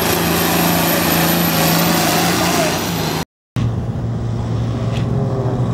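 Diesel farm tractor engine running hard at high revs under the load of a weight-transfer pulling sled. After an abrupt cut a little over three seconds in, the engine is heard running steadily at a noticeably lower speed.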